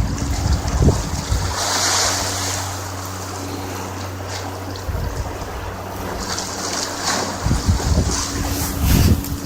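Wind buffeting the microphone and sea washing against the rocks, with the steady low hum of a boat engine running nearby. Gusts of wind hit the microphone at the start and again near the end.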